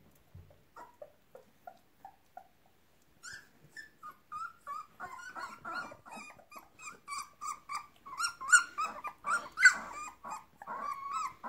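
Young puppies play-fighting, giving high-pitched yips, squeals and squeaky little growls: their first attempts at growling and barking. A few faint single squeaks at first, then from about three seconds in a quick, louder run of yips that is loudest near the end.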